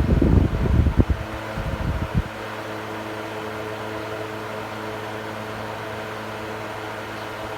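Electric fan running: air buffets the microphone with a loud low rumble for about the first two seconds, then gives way to a steady motor hum with a few low tones.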